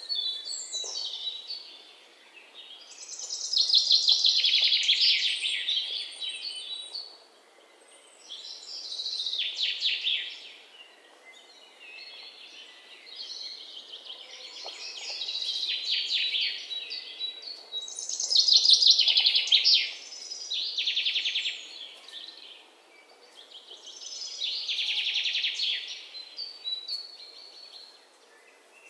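Songbirds singing: fast, high trilling phrases of two to four seconds each, repeating every few seconds, with short chirps between them.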